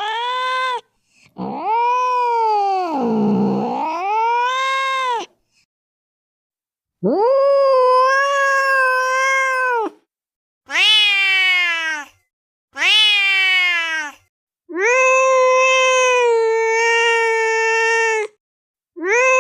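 Angry cat yowling: about six long, drawn-out caterwauls of one to four seconds each, with dead silence between them. Some dip and waver in pitch, others hold steady. These are threat calls of an aggressive cat.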